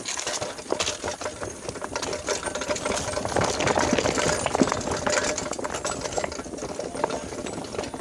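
Mountain bike rolling over a loose rocky path: rapid ticking from the freewheel hub along with the rattle of the bike and its handlebar gear over the stones.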